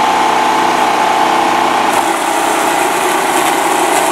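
Steady running of a generator engine together with the Worx JawSaw electric chainsaw's motor. A higher hiss joins about halfway through, as the chain works.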